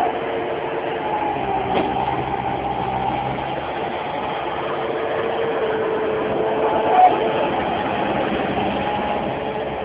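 Bobcat skid-steer loader's engine running steadily with a constant whine as the machine backs away from an uprooted stump. A short sharp knock about seven seconds in is the loudest moment, with a fainter one about two seconds in.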